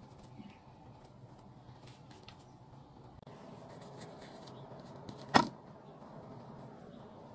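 Faint handling of soft bread dough on a table, with one sharp clack a little over five seconds in as a kitchen knife strikes the tabletop.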